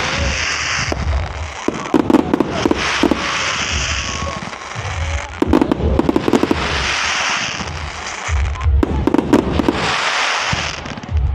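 Aerial fireworks bursting overhead in about four rounds, each a cluster of sharp bangs followed by a second or two of fizzing crackle from crackling stars.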